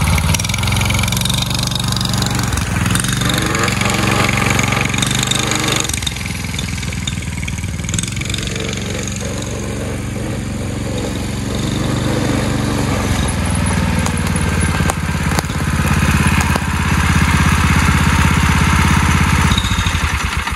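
Predator 212cc single-cylinder four-stroke engine in a mini ATV running under way: it is loud at first, fades as the ATV rides off and grows louder again as it comes back. The engine has an exhaust gasket leak.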